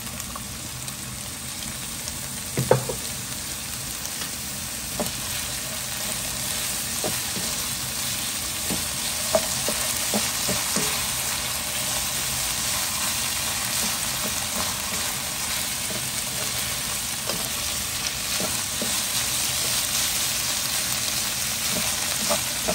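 Minced pork and diced carrot sizzling in a wok, just seasoned with oyster sauce and fish sauce, while a spatula stirs and scrapes through it. Short knocks of the spatula on the pan come every few seconds, with a louder knock about three seconds in.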